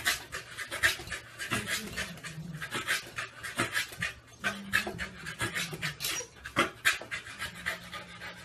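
A dog panting in quick, repeated breaths, several a second.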